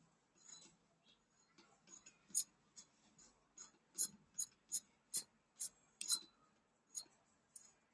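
A series of about a dozen sharp metal clicks, two or three a second at their densest, from the steel crimping head being fitted into a manual perfume-bottle crimping machine.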